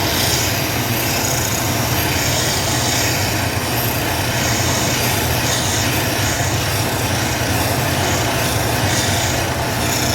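Loud, steady machine noise: a continuous rushing sound over a constant low hum, with no separate strikes or rhythm.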